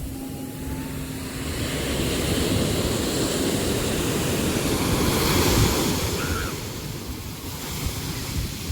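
Sea waves surging against the shore: one wave builds over a couple of seconds, peaks about five seconds in, then washes back and subsides, over a low, uneven rumble of surf.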